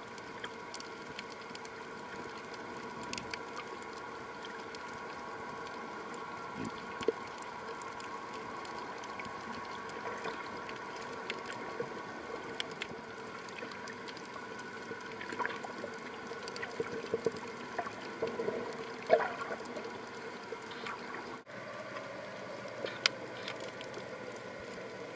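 Underwater sound picked up by a camera sealed in an underwater housing: a steady hiss and faint hum with scattered sharp clicks and crackles, busier about two-thirds of the way through. It cuts out for an instant near the end.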